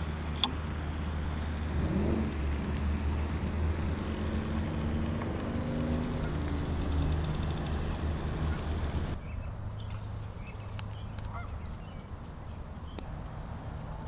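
Geese honking over a steady low rumble. About two-thirds of the way through the sound drops to a quieter stretch with faint small-bird chirps.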